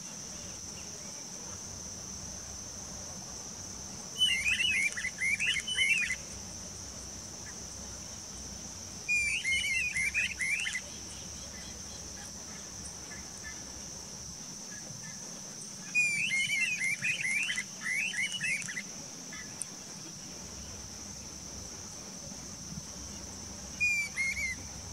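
Pair of streamer-tailed tyrants calling in duet: four bouts of rapid, sharp chattering notes, each lasting one to three seconds, coming a few seconds apart. A steady, thin, high hum runs beneath.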